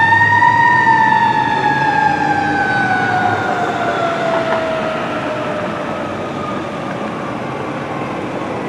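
Siren of a 2013 Pierce Velocity aerial ladder fire truck. It peaks in pitch just after the start, then winds slowly down in one long falling tone. Vehicle engine and road noise run underneath.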